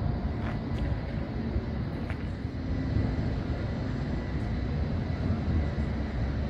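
Steady low rumble of a tour bus driving, engine and road noise heard from on board.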